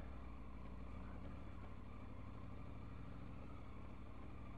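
Triumph Tiger 900's three-cylinder engine running steadily under the ride, with no change in revs.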